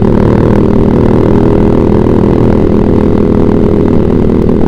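Yamaha Vixion's single-cylinder four-stroke engine running through a Proliner TR1 short aftermarket exhaust, loud and at a steady pitch while riding.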